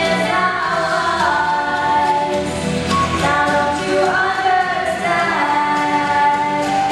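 Two female voices singing a duet into handheld microphones, with long held notes.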